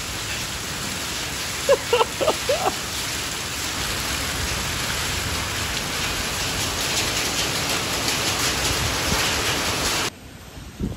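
Heavy storm rain pouring down in a steady hiss, with a few short pitched cries about two seconds in. The rain noise drops off abruptly near the end.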